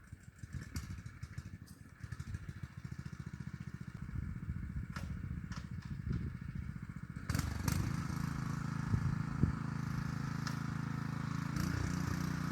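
Honda GX200 single-cylinder four-stroke engine on a petrol tiller running with a fast, even pulse, picking up to a louder, steadier speed about seven seconds in.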